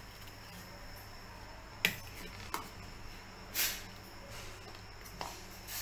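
Steel spoon clinking and scraping against a stainless-steel mesh strainer while blended tomato puree is pressed through it: a few separate sharp clinks and short scrapes.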